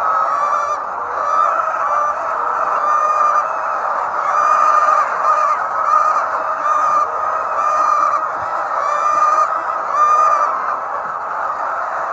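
A large flock of chickens calling together: a dense, continuous chorus of hen calls, with drawn-out squawks repeating about once a second over the din.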